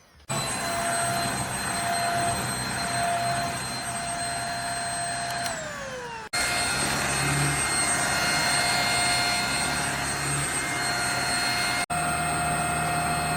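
Corded JPHYLL Ultra-UVC-K16 mattress vacuum running with a steady high whine over a rush of suction. About five and a half seconds in its whine slides down in pitch and stops, then it starts up again straight away and runs on, cutting out for a moment near the end.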